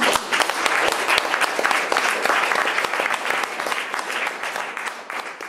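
Audience applauding: many hands clapping, starting suddenly as the talk ends and thinning out toward the end.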